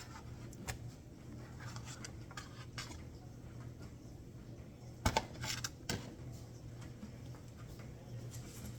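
Cookware being handled in a kitchen: scattered light clicks and knocks, with a louder cluster of clattering about five seconds in, over a steady low hum.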